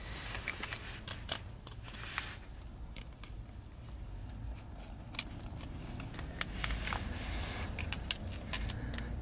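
Handling noise: scattered light clicks and scrapes over a low, steady rumble.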